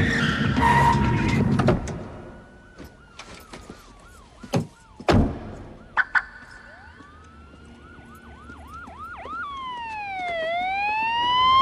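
Car engine and tyre noise that cuts off within the first two seconds, then distant police sirens wailing and yelping. A heavy thump comes about five seconds in and two sharp clicks at six seconds, and near the end a police siren wail swoops down and back up, growing louder.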